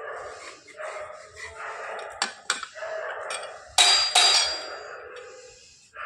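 Slate-pencil bars being scraped clean in repeated strokes about a second apart, with two sharp clicks a little after two seconds and a loud clatter of hard pieces near the middle.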